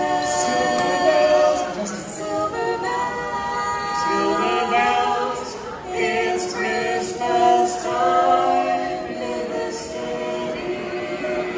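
A choir singing a cappella: several voices holding long notes together in phrases.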